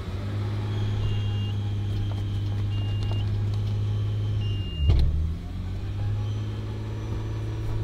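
Nissan Skyline R32 GTS-T's turbocharged straight-six idling steadily just after starting. About five seconds in, the idle dips briefly under load and then recovers: the clutch is being eased out with the gearbox stuck in gear, so the car lurches. A faint warning chime beeps about every second and a half.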